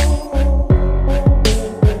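Background hip hop music with a heavy bass beat, a sharp hit about every half second.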